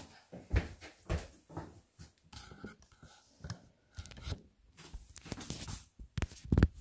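Handling noise from a phone camera being picked up and moved close: a string of knocks, taps and rubbing rustles right at the microphone, with the sharpest knocks about half a second in and again near the end.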